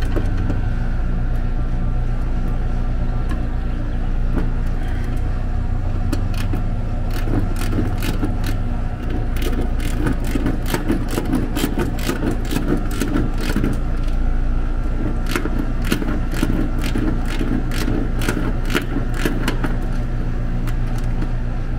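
Trane outdoor air-conditioning condensing unit running steadily, its compressor and condenser fan giving a low, even hum, as the system is pumped down. From about six seconds in until near the end, a run of sharp clicks and taps sits over the hum.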